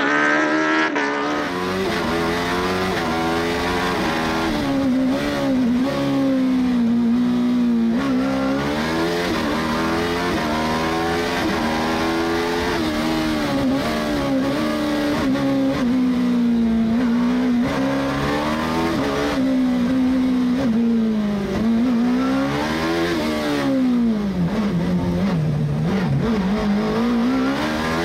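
Suzuki K6-generation 1000 cc inline-four motorcycle engine in a Fiat 500 slalom car, heard from inside the cockpit, revving high and dropping back over and over as the car is driven hard through the gates.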